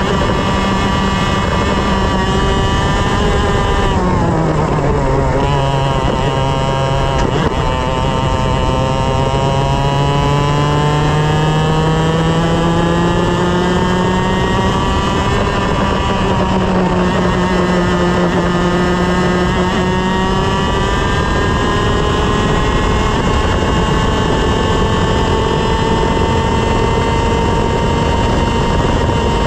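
125 cc two-stroke TaG racing kart engine at race pace. Its revs drop sharply about four seconds in as the kart slows, then climb steadily as it accelerates, with a short dip about halfway before rising again.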